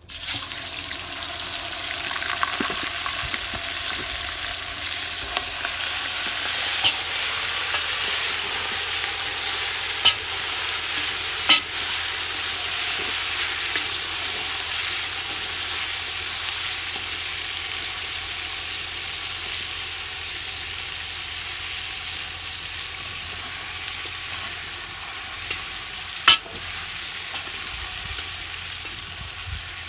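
Chunks of raw meat frying in hot fat in a cauldron over a wood fire: a loud, steady sizzle that starts suddenly as the meat goes in. A few sharp knocks stand out as the meat is stirred with a wooden spoon.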